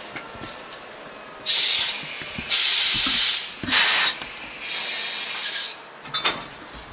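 Compressed air hissing from a train's air system in four loud bursts of about a second each, followed by a couple of short metallic knocks near the end.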